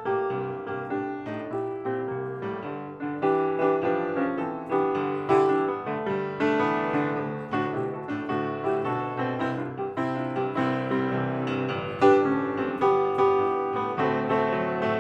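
Solo piano music playing, struck notes and chords sounding and decaying one after another.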